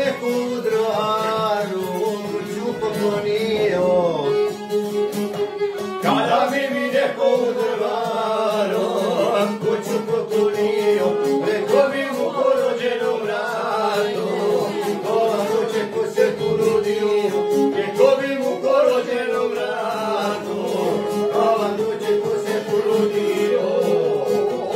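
Live folk music: a violin and a long-necked plucked string instrument playing together while a man sings in long, held, wavering lines.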